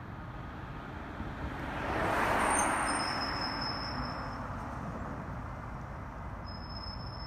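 A Dodge Charger car passing close by: its tyre and engine noise swells to a peak about two and a half seconds in, then fades as it drives away, over a steady low rumble.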